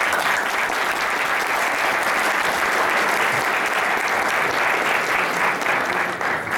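Audience applauding in a hall, steady throughout and fading out just after the end.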